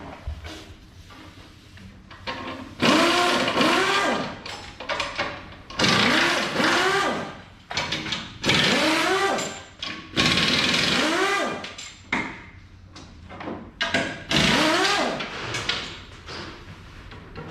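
Power tool whirring in about five short bursts, its pitch rising and falling within each burst.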